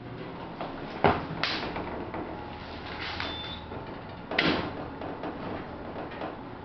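Elevator cab running with a steady low hum, with its doors shut. There is a sharp click about a second in and a thump a few seconds later, with a brief faint high beep in between.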